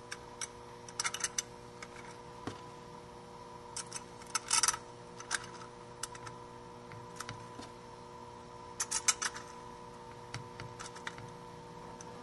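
Small steel bolts and a lock washer clinking against the metal drive clutch plate as they are set in place and threaded by hand, in scattered clusters of light clicks, the busiest about a second in, around four and a half seconds, and near nine seconds. A faint steady hum runs underneath.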